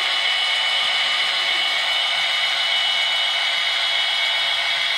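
Sound decoder of a Piko model PKP SU46 diesel locomotive playing its diesel engine running sound through the model's small onboard speaker: a steady, thin drone with no bass, unchanging throughout.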